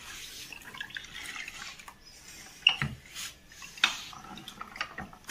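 Cello hand-operated lever citrus press squeezing a sweet lime, with a soft wet squish and juice trickling into the cup for about the first two seconds. Then come two sharp knocks about a second apart as the press is handled, followed by a few lighter clicks.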